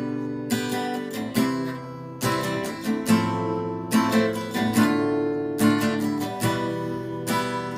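Acoustic guitar strummed in a slow rhythm, chords ringing out between strokes: an instrumental passage of a song with no singing.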